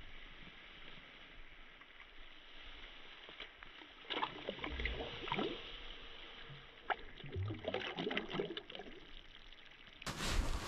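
Water splashing as a smallmouth bass is let go at the surface beside a kayak: a run of small, irregular splashes and drips starting about four seconds in and lasting several seconds. Near the end, wind buffets the microphone.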